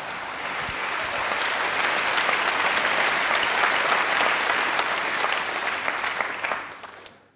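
Live stand-up comedy audience applauding, a dense patter of many hands clapping that swells about a second in and fades out near the end.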